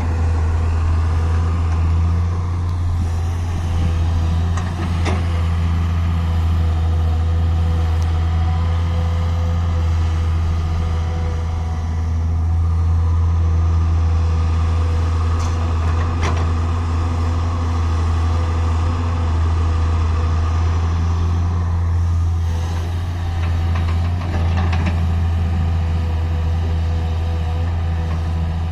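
Diesel engine of an excavator-loader running steadily under work, with a few short knocks along the way.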